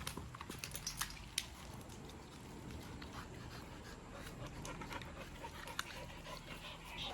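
An American bully dog panting, with scattered small clicks.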